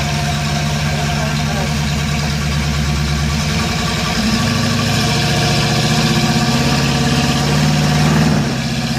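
Off-road truck's engine running at low revs as it works up a rock ledge, the revs rising about four seconds in and dropping back near the end.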